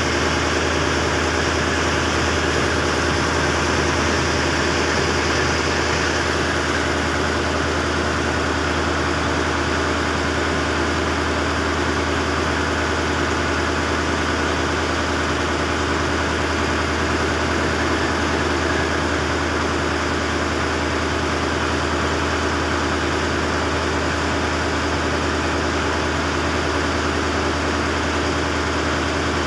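A boat's engine running steadily, a constant low hum that does not change.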